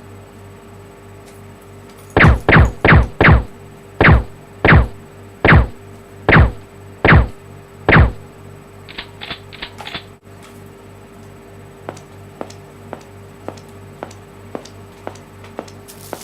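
Added sound effects: a run of about ten loud, quick zaps, each dropping sharply in pitch, then quieter clicks ticking about twice a second, over a steady hum.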